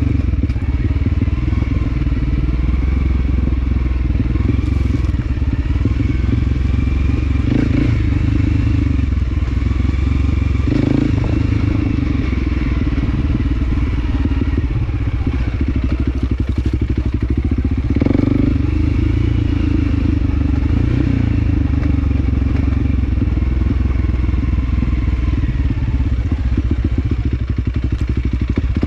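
Small motorcycle engine running under way, steady throughout, with its note swelling briefly a few times.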